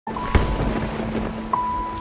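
Heavy rain pouring, with a deep boom of thunder about a third of a second in. Sustained music notes sound over it.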